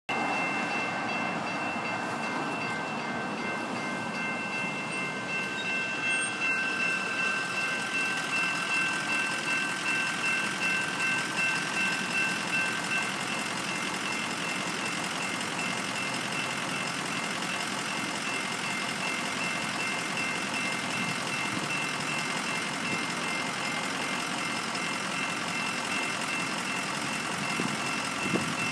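Railroad grade-crossing warning bells ringing steadily, several electronic bell tones at once. One of them stops about halfway through. Road traffic runs underneath.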